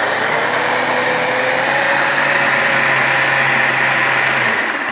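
Kenwood Cooking Chef XL food processor attachment running, grating zucchini through its fine grating disc: a steady motor whine with grating noise, winding down near the end.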